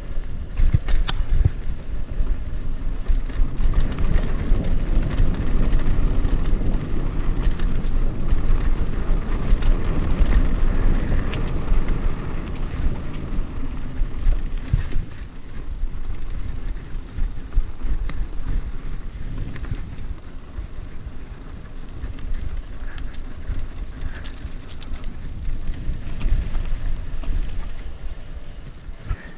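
Wind rushing over the action-camera microphone while a mountain bike rolls fast down a dirt trail, its tyres crunching over the ground and the bike clicking and knocking over bumps. Louder in the first half.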